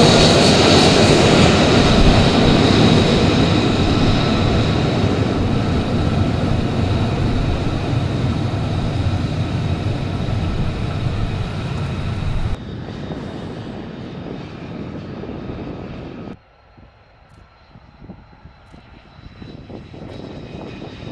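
F-35 fighter's Pratt & Whitney F135 turbofan running loud: a dense jet roar with a steady high whine over it. The sound drops suddenly about twelve seconds in and again about four seconds later, ending much quieter.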